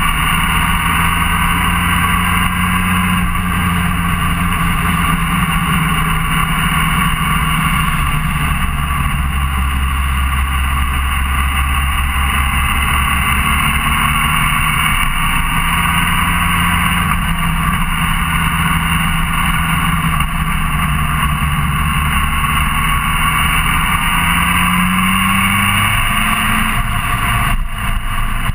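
Motorcycle engine running at a steady cruising speed, with wind and road noise. The engine note rises briefly near the end as it accelerates.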